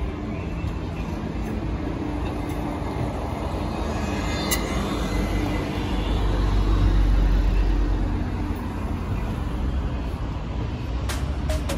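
Low rumble of a passing vehicle in city traffic, swelling to its loudest in the middle and then easing off. Music begins near the end.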